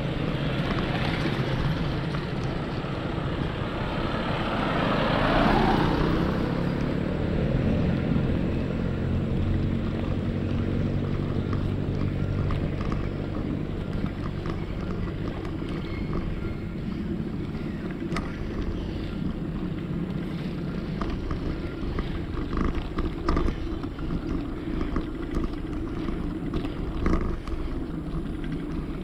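Steady wind rush on the microphone of a moving rider, with a motor vehicle passing about five seconds in, its pitch falling as it goes by.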